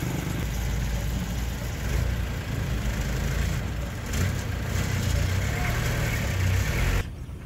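Dump truck's diesel engine running steadily as the raised tipper bed empties its load of soil, the sound cutting off suddenly near the end.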